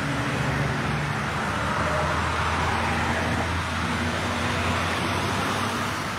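Road traffic: a motor vehicle running close by, a steady low engine hum under a rush of tyre and road noise that swells a little about two seconds in.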